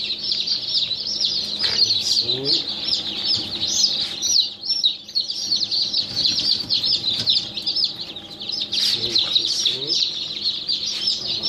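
Many newly hatched chicks peeping without pause, a crowd of short, high cheeps overlapping one another.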